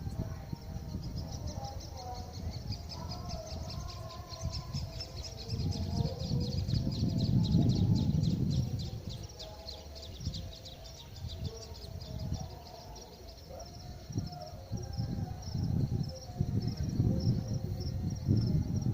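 Gusting wind buffeting the microphone, swelling strongest about six to nine seconds in and again near the end, over a rapid, high, pulsing chirp of insects and a few faint bird calls.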